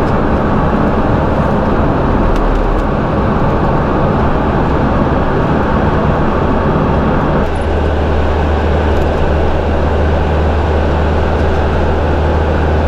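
Engine and road noise of a Chausson V594 Max camper van heard from inside the cab while driving, a steady drone; the low drone gets stronger about seven and a half seconds in.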